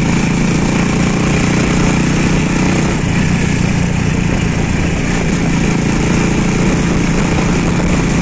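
Small motorcycle-type engine of a passenger tricycle running steadily under way, with wind and road noise from the open cab.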